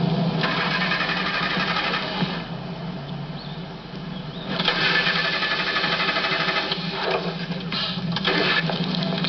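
Car engine cranking on the starter motor in repeated tries without catching, because the tank is out of fuel. There is a long crank about two seconds long, a pause, a second crank of about two and a half seconds, then two short bursts near the end.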